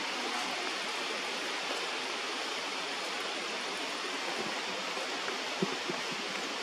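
A steady, even rushing noise with no pitch to it, with two faint clicks near the end.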